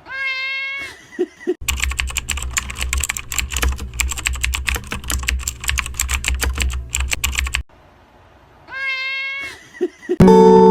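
A cat meows once, then rapid computer-keyboard typing clatters for about six seconds over a low hum, then the cat meows again. Music starts just before the end.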